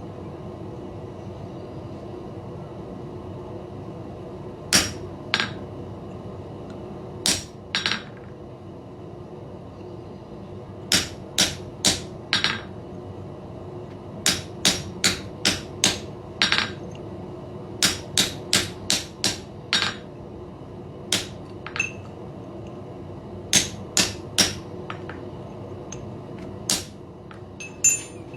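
Hand hammer striking a half-round chisel to cut a collar line into forged iron: about thirty sharp, ringing blows in short clusters with pauses between them as the chisel is walked around the piece. A steady hum runs underneath.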